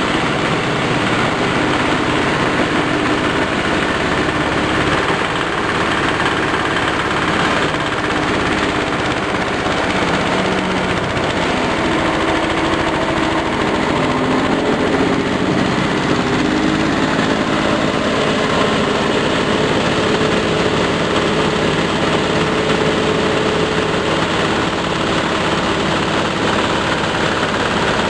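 Belt-driven forage chopper-grinder running under power from its engine, grinding corn stalks and husks: a steady loud mechanical noise with a dense rapid rattle over the engine's drone.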